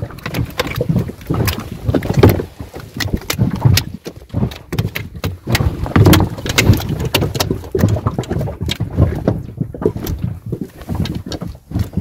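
Irregular clicks and knocks of fish and fishing tackle being handled in an inflatable boat, over a low rumble.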